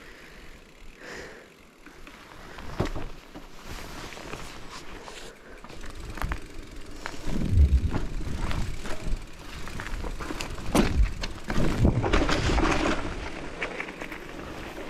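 Mountain bike riding over a rough forest trail: tyre rumble with knocks and clatter from the bike over the bumps. Quieter at first, it gets louder and bumpier from about halfway.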